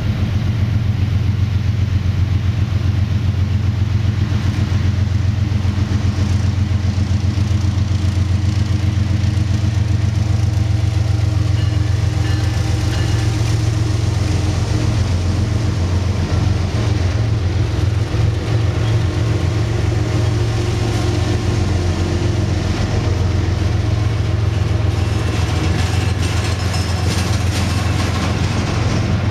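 Florida East Coast Railway diesel locomotives pulling a departing intermodal freight train past at close range: a loud, steady low engine drone. In the last few seconds the rapid clicking and clatter of the double-stack container cars' wheels on the rail comes in.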